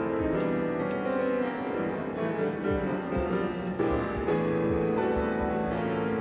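Solo grand piano playing many notes in quick succession.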